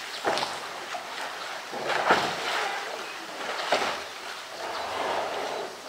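Water splashing and sloshing as a polar bear pushes and rolls a hollow plastic drum at the edge of its pool, with three louder splashes.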